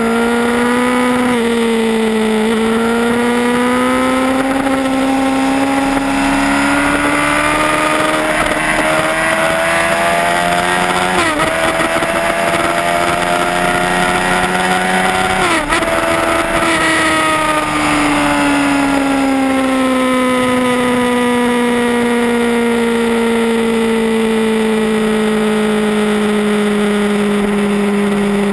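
Yamaha R1 inline-four engine pulling hard at track speed, its note climbing steadily with two brief breaks, gear changes, about eleven and fifteen seconds in, then falling slowly through the last ten seconds. Wind rush runs underneath.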